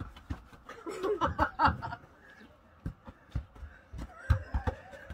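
A burst of laughter about a second in, then several dull thuds of a football being kicked about in play. The loudest thud comes a little after four seconds.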